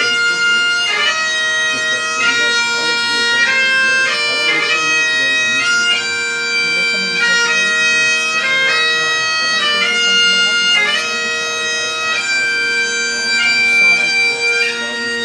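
Great Highland bagpipes playing a tune: the chanter melody moves from note to note over the steady, unbroken hum of the drones.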